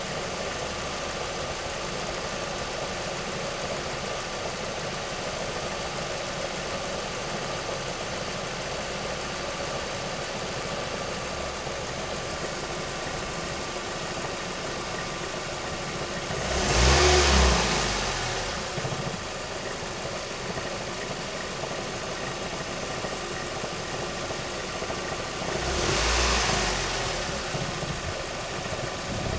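2006 Ford Mondeo Mk3's engine idling, blipped twice, once a little past halfway and again near the end. A knocking from the transmission runs with it, clearest as the revs fall back after each blip.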